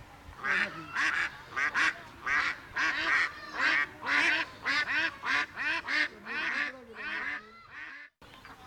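Domestic waterfowl calling: a rapid run of short calls, several a second, that stops shortly before the end.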